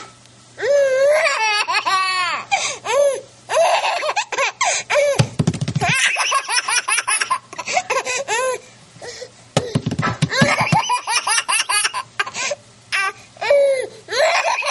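A toddler laughing hard in repeated high-pitched bursts of belly laughter, with short pauses between fits. Two brief low rumbles come about five and ten seconds in.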